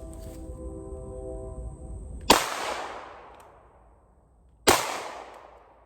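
Two pistol shots from a Polymer 80 PF940CL Glock-pattern 9mm build, about two and a half seconds apart, each ringing out with a long echo. The slow spacing fits a slide that does not return fully into battery after each shot, which the shooter blames on a weak uncaptured recoil spring.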